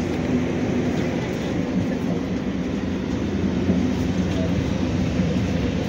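Steady low rumble and hum of railway equipment, with faint voices of people in the background.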